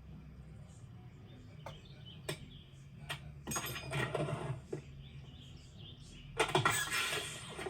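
Film foley sound effects: a few sharp clicks and knocks, then two bursts of rustling, scuffling noise, the second one near the end the loudest.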